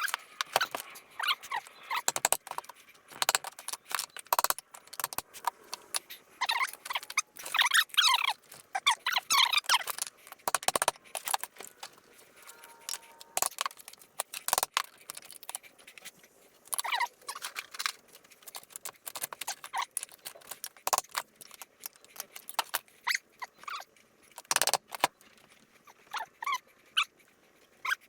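Metal clinks, taps and squeaks as the aluminium crankcase halves of a motorcycle engine are worked apart and handled, with short scattered knocks and a run of squeaking about six to ten seconds in.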